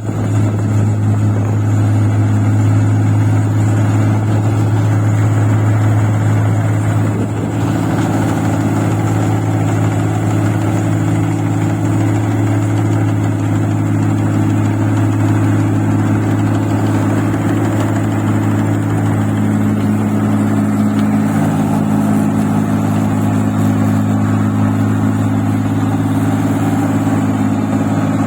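Engine of a paddy-field machine running steadily while working in deep mud, with a slight change in its note about seven seconds in.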